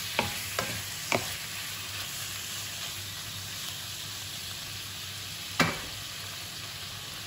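Thin-sliced beef, onion and garlic sizzling in a nonstick wok, stirred with a wooden spatula that knocks against the pan three times in the first second and a half. A louder single knock about five and a half seconds in, after which the steady sizzle carries on alone.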